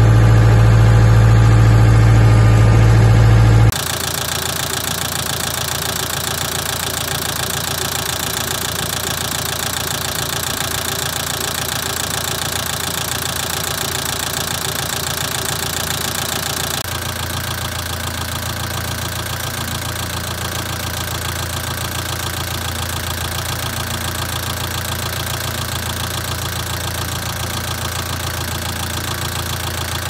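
Bitelli BB632 asphalt paver's Deutz diesel engine idling steadily. The sound changes abruptly twice, at about four seconds and just past halfway, each time turning a little quieter.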